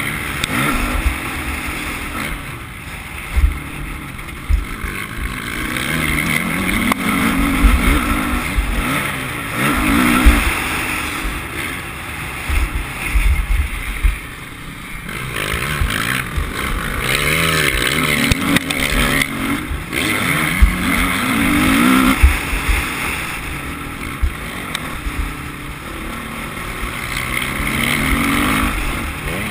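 Motocross bike engine running hard, its revs climbing and dropping back again and again as the rider accelerates and shifts. Wind rushes over the microphone, and there are low thumps from the bumps in the dirt track.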